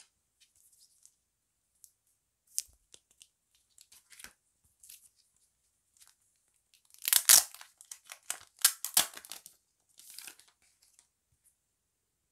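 Plastic film wrapping on a stack of photocards being torn open and crinkled: a loud crackly tearing about seven seconds in that lasts about two seconds, with a shorter burst a moment later. Before it, light taps and rustles of cards being handled.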